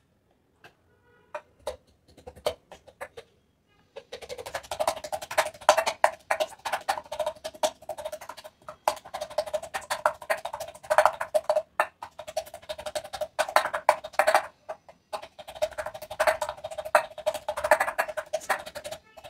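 Stainless-steel tumbler pounded rapidly into a steel bowl, crushing aloe vera gel: a fast run of metallic knocks over a steady ring from the bowl, with a brief pause about three-quarters of the way through. A few scattered clicks come before the pounding starts, about four seconds in.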